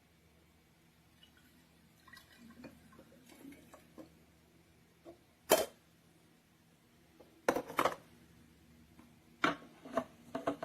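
Water trickling as it is poured into a small espresso machine's boiler, followed by sharp knocks and clatter from handling the machine's parts. The loudest knock comes about five and a half seconds in, and more clatter comes near the end.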